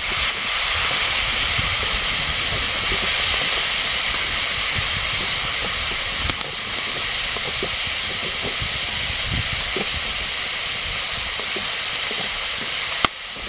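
Litchi stink bugs sizzling in a hot wok over a wood fire, a loud steady hiss, with light knocks from chopsticks stirring them. The sizzle cuts off abruptly near the end.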